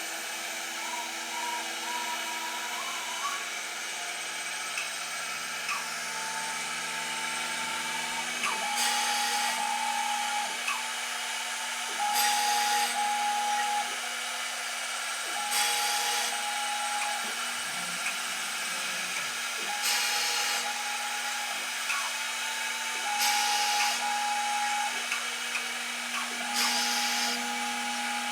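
CNC sheet-cutting machine working: a steady hum with a mid-pitched motor whine as the machine moves. Starting about a third of the way in, a loud burst of cutting noise lasting about a second comes every three to four seconds, six times.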